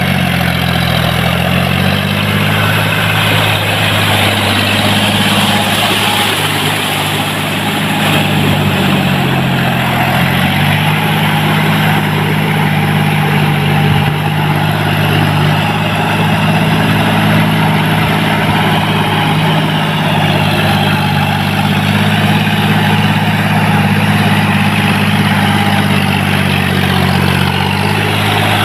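John Deere 5045D tractor's three-cylinder diesel engine running steadily under load while its cage wheels churn through paddy-field mud. The engine note sags about a second in and again around eight to ten seconds in, then picks back up.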